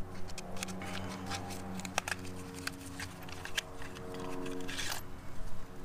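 Light clicks and rustling from a new spark plug and its packaging being handled, with a noisier rustle a little after four seconds in, over a steady low background hum.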